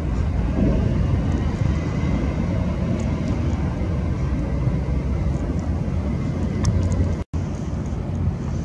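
Steady low rumble of outdoor background noise, with a split-second dropout at an edit about seven seconds in.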